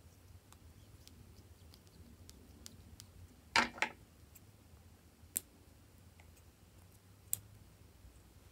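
Metal scissors snipping pieces off lip balm sticks: a loud double snip about three and a half seconds in, then two short sharp clicks of the blades, with faint ticks of handling before.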